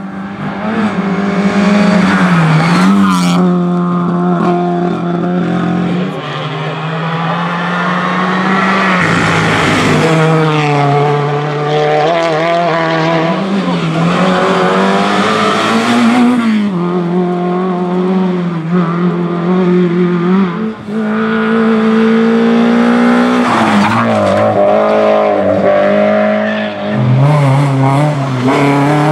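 Rally cars on a tarmac special stage, one after another, engines revving hard. The pitch climbs and drops again and again as the drivers go up and down through the gears and lift for the bends.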